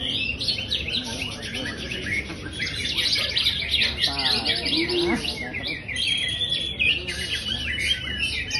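Cucak ijo (green leafbird) singing a fast, unbroken run of rapid high chirps and trills.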